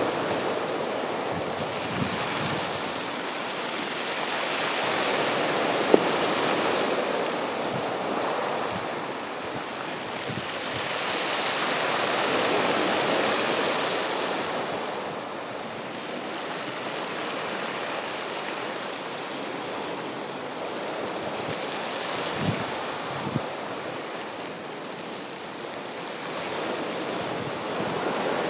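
Sea surf washing on a pebble beach, swelling and fading in slow surges every several seconds, with wind buffeting the microphone. A few brief knocks stand out, the sharpest about six seconds in.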